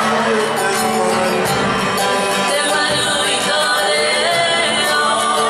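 Cook Islands string-band music for a dance: strummed guitar and ukulele with singing voices, playing steadily.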